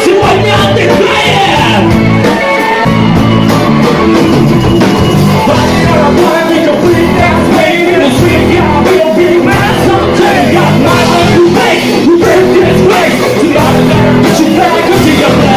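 Rock band playing loud with a singer, a live performance in a bar.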